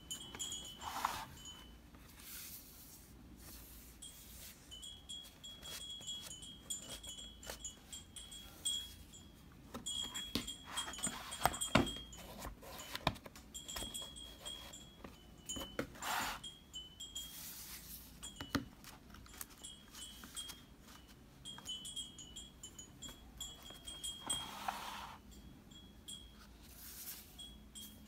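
Cardboard pages and sliding tabs of a children's moving-parts board book handled by hand: soft taps, clicks and rubs, with a few brief swishes of pages being moved. A steady high tinkling like wind chimes goes on behind it.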